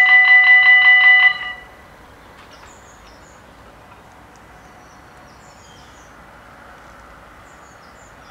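Dutch level-crossing warning bells ringing in a rapid, even rhythm, then cutting off suddenly about a second and a half in as the barriers come fully down.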